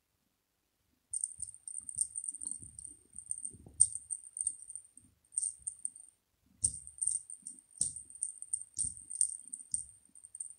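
Small bell inside a toy ball jingling in quick shaken clusters, starting about a second in, pausing briefly near the middle, with a few soft dull knocks.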